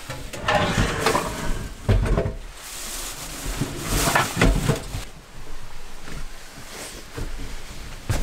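Handling noises in a small wood-lined room: rustling of a nylon down jacket and of things being moved, with a few dull thumps and a sharp knock near the end.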